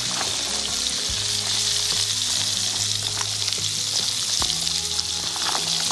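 Peppers and onions frying in butter in a cast-iron skillet: a steady sizzle with scattered small pops and crackles.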